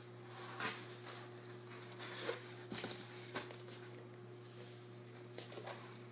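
Scattered faint clicks and rustles of hands handling a cardboard packaging insert while working an RC car remote out of it, over a steady low hum.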